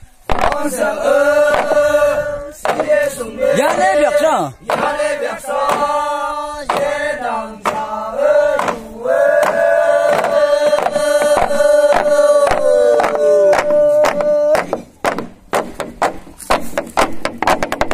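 A group of men chanting in unison in long held notes, with bamboo sticks knocking on a bamboo tube under the chant. About three-quarters of the way through the chant stops and the bamboo knocking carries on alone as a rapid, uneven clatter.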